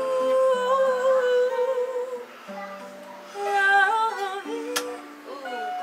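A woman sings a slow, wordless melody, holding long notes with vibrato, over an acoustic guitar. Her voice grows louder in a phrase a little over halfway through.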